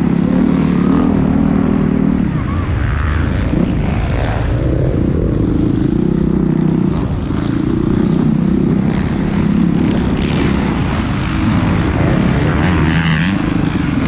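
Motocross bike engine heard from on the bike during a race, running loud with its note swelling and easing every couple of seconds as the rider opens and rolls off the throttle.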